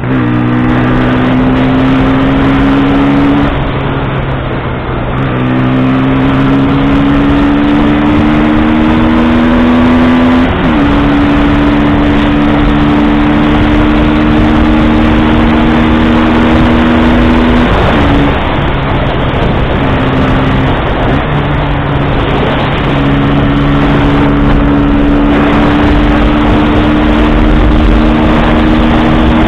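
KTM 125 Duke's single-cylinder four-stroke engine pulling at road speed, its note creeping slowly upward and dipping briefly a few times. Heavy wind rush over the bike-mounted microphone.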